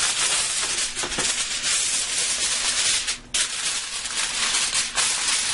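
Aluminum foil crinkling as a sheet is spread over a baking pan and pressed down around its rim, with a brief pause about three seconds in.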